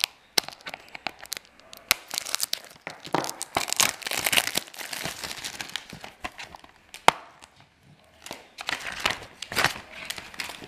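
Plastic shrink-wrap being torn and peeled off a DVD case, crinkling in stretches, with a few sharp clicks from handling the hard plastic case.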